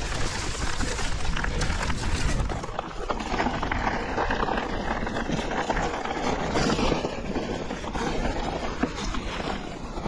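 Electric mountain bike riding over a rough dirt and gravel track: tyres crunching and the bike rattling over bumps, with wind buffeting the microphone for the first couple of seconds.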